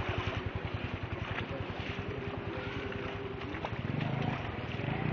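Small engine running steadily at low speed with a fast, even low chugging pulse.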